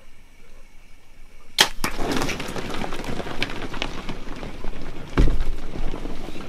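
A bow shot about a second and a half in, one sharp crack, then a herd of blue wildebeest bolting at a gallop, their hooves pounding on dry dirt, with a louder low thud about five seconds in.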